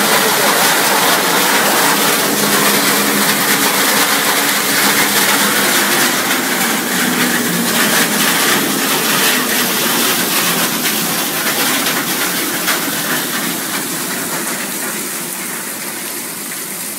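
Water gushing and splashing out of a high-pressure-water PET bottle label-removing machine as it discharges labels and bottle pieces, over a faint steady machine hum. It grows a little quieter near the end.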